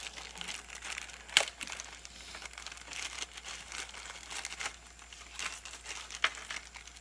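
Paper or plastic crinkling and rustling as a gloved hand handles packaging and shop towels, with two sharper clicks, about a second and a half in and near the end.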